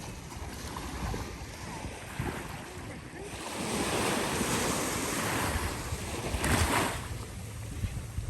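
Ocean surf washing onto a beach: a wave swells in about three seconds in and breaks near the end, with wind buffeting the microphone.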